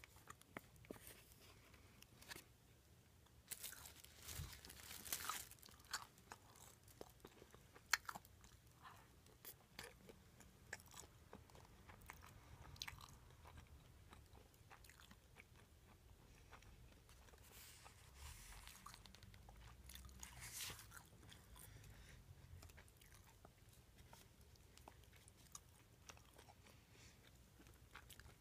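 Close-miked chewing of a mouthful of rice ball in hayashi sauce: soft chewing dotted with sharp crunchy clicks, heavier about four to six seconds in and again around eighteen to twenty-one seconds in.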